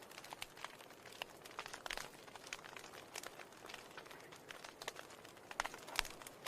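Faint, irregular crackling and clicking over a low hiss, with a slightly louder click about six seconds in.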